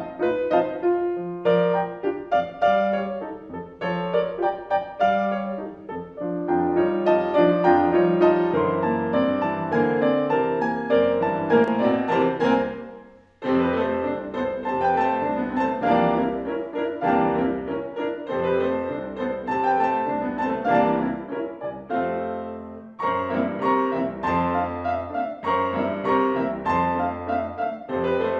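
Steinway concert grand piano played four hands in a duet. The music fades to a brief pause about halfway through, then starts again abruptly.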